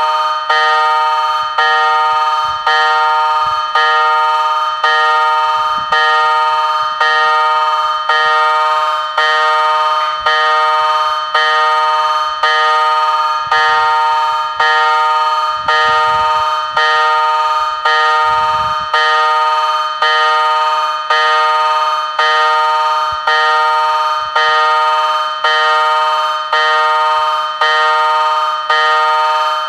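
Level crossing warning bell ringing: a loud ringing struck about once a second, each stroke fading before the next, warning of an approaching train.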